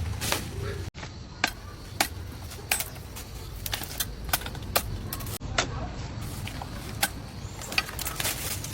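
Irregular sharp clicks and taps, about one every half second, over a low steady rumble.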